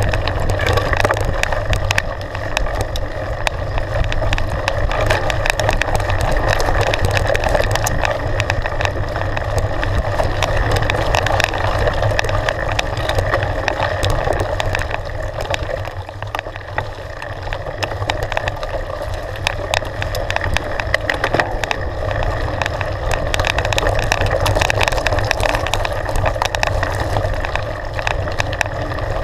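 Mountain bike riding fast down a rough, stony dirt trail: continuous tyre rumble over gravel with constant rattling and clicking of the bike over the bumps, and wind rushing over the microphone.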